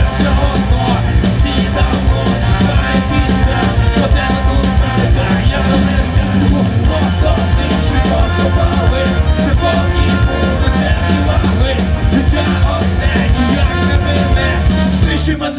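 Live rock band with a ska feel playing a loud instrumental stretch, trumpet over keyboard, bass and a steady drum beat.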